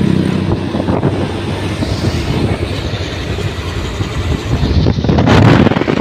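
A road vehicle going past close by, its engine and road noise loud, with wind buffeting the microphone. The rush grows louder about five seconds in.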